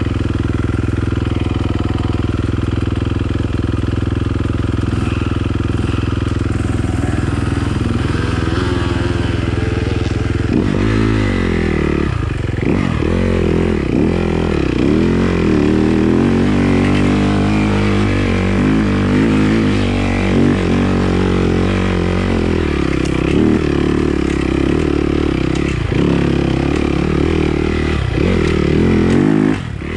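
Yamaha dirt bike engine idling steadily for about ten seconds, then revving up and down continuously as the bike is ridden along a wooded trail.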